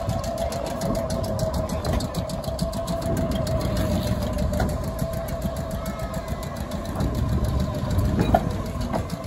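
Vintage Hudson & Manhattan Railroad subway car standing with its onboard machinery running: a steady hum over a low rumble, with a short sharp click about eight seconds in.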